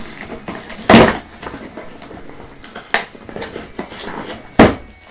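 White cardboard box being handled and opened: light rustling with three short, sharp cardboard noises, the loudest about a second in and near the end.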